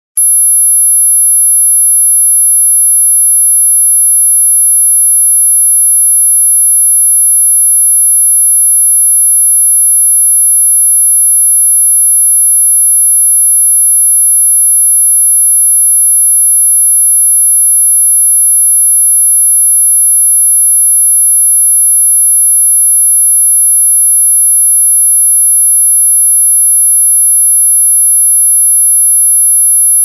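Synthetic 'mosquito' tone: a single very high-pitched pure electronic tone held at one unwavering pitch, with nothing else in it.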